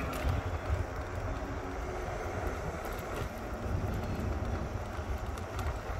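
Bicycle rolling along a paved road: a steady low rumble of tyres and air movement, with a few faint clicks.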